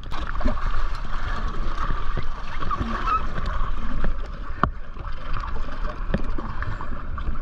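Seawater sloshing and splashing against the side of a small fibreglass boat, with swim fins kicking at the surface. A sharp knock stands out about two-thirds of the way through.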